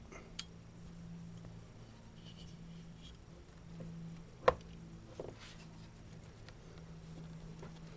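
Small clicks and taps of parts and hands working in an engine bay, with one sharp metallic click about four and a half seconds in, over a faint steady low hum.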